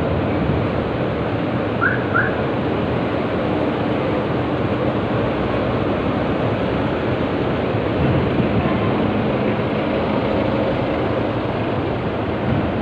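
Road traffic: a box truck and cars driving past on the street, a steady rush of engine and tyre noise. Two quick high chirps about two seconds in.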